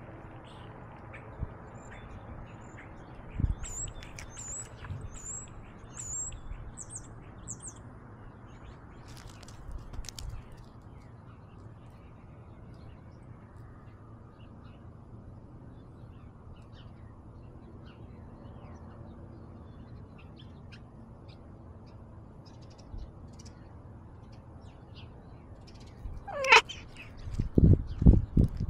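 Outdoor ambience picked up by a cat's collar camera. A small bird gives a quick series of about six high chirps a few seconds in, and a single call falls sharply in pitch near the end. It is followed by a run of heavy bumps as the collar camera jolts with the cat moving off across gravel.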